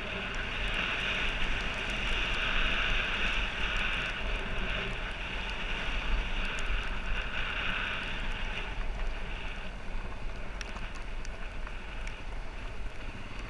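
Dirt bike engine running as the bike rides along a rough dirt track, with wind noise on the helmet microphone. The engine note eases and the sound grows a little quieter from about nine seconds in.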